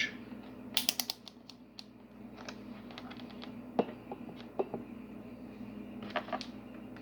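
Multimeter's rotary selector switch clicking through its detents as it is turned to the amperage setting: a quick run of clicks about a second in, then scattered single clicks and taps, over a faint steady hum.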